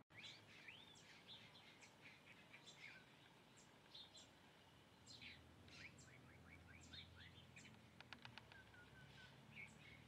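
Faint chirps and short calls from several birds, with quick rising and falling notes scattered through. About eight seconds in comes a quick run of sharp clicks.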